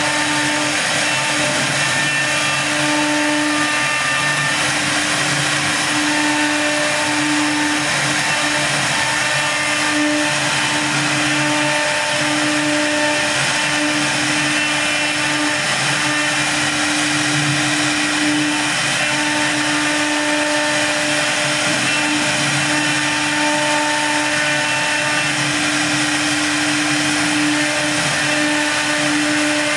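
STM1325-3T three-spindle CNC wood router running and cutting a wooden board: a loud, steady machine whine over a rush of noise, the tone swelling and fading every few seconds.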